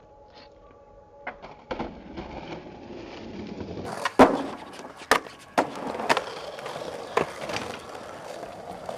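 Skateboard wheels rolling on concrete, growing louder after the first couple of seconds, with about half a dozen sharp clacks of the board striking the ground; the loudest comes a little past the midpoint.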